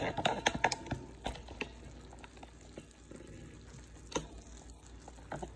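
Quick clicks and knocks of a microphone and phone being handled and repositioned, densest in the first second and a half, with one more knock about four seconds in. Under them, a steady sizzle of chopped vegetables frying in a skillet.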